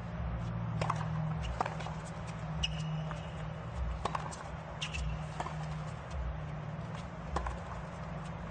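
Tennis rally: a serve and then racket strikes on the ball with bounces on a hard court, sharp knocks about every second, over a steady low hum.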